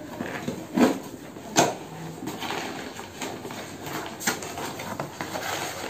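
Cardboard packaging being handled and opened by hand: rustling and scraping of cardboard and paper, with two sharp knocks about a second and a second and a half in.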